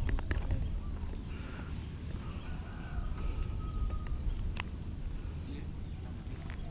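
Low, uneven outdoor rumble on the camera's microphone, with a few faint clicks and distant background sounds.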